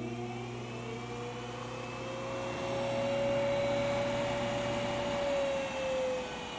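Two-horsepower treadmill motor with its flywheel, run from the treadmill's controller board, spinning with a steady whine. The pitch climbs over the first few seconds, holds, then sinks slightly near the end, while a low hum underneath stops about five seconds in.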